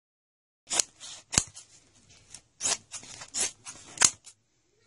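Scissors snipping through heavy black woven fabric: a run of crisp cuts, about five sharp strokes and a few softer ones over three and a half seconds.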